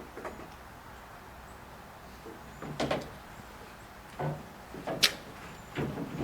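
Short plastic and metal clicks and knocks, about five over a few seconds with the sharpest about five seconds in, from handling a pickup's tail light housing and bulb sockets during a bulb change.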